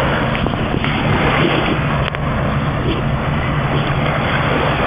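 Steady rushing noise of wind buffeting the phone's microphone, with a low steady hum underneath.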